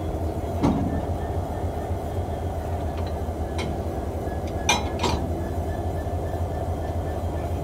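Steady low rumble of a standing locomotive, with a few sharp metallic clinks and knocks as the coupling between locomotive and coach is worked by hand. The clinks are loudest a little under a second in and twice close together about five seconds in.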